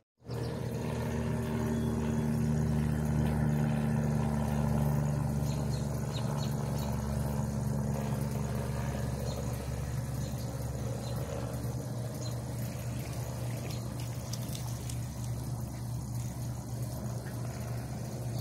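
A motor running steadily out of sight, a low even hum; one of its higher tones drops away about halfway through.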